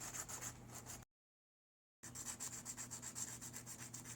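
A bobby pin lock pick being rubbed back and forth on sandpaper in rapid, sped-up strokes, thinning the pick's sides. The sound cuts out completely for about a second, a little after the start.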